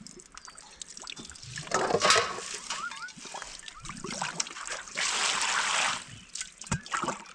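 Water trickling and splashing, with two louder spells of splashing about two seconds in and about five seconds in, lasting about a second each.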